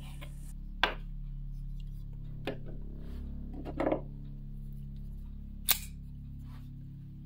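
Folding knives handled on a wooden cutting board: a few knocks and taps of blade and handle on the board as sausage slicing ends and one knife is set down. A sharp click near the end as a folding knife is snapped open. A steady low hum runs underneath.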